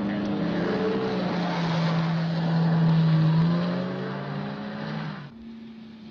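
Car engines running hard on a gravel road, over a rush of tyre and gravel noise; the engine pitch dips about two seconds in, then rises again. About five seconds in the sound cuts abruptly to a quieter, steady engine hum.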